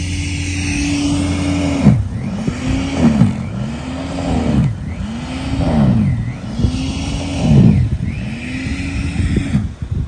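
Corded electric snow blower's motor running with a steady whine, then from about two seconds in repeatedly sagging in pitch and recovering, about once a second, as it bogs down biting into deep snow. It cuts off near the end.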